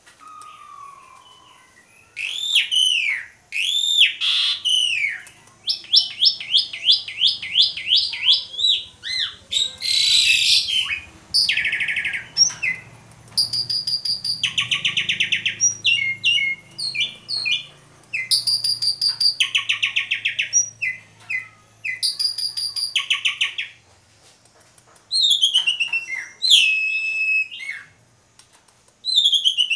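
Jalak suren (Javan pied starling) singing a loud, varied song: curving whistled notes, fast runs of repeated notes and harsh, buzzy rattling phrases, with a short pause about three-quarters of the way through before it starts again.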